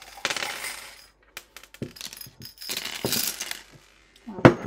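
A handful of small metal charms jingling as they are shaken, then scattering and chinking across cards on a table, with the loudest clatters near the end.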